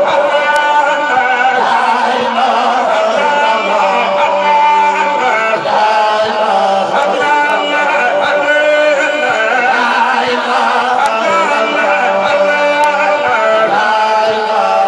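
Several men chanting an Islamic religious praise song together into handheld microphones, their voices amplified through a sound system in long, sustained melodic lines.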